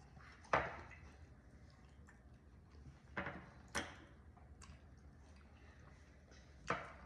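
Four short, sharp knocks or taps over quiet room tone, the first about half a second in and the loudest, two close together near the middle, and one near the end.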